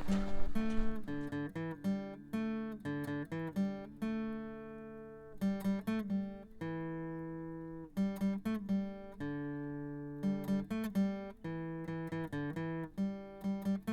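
Acoustic guitar music: a picked melody of single plucked notes and short phrases, each note ringing and fading.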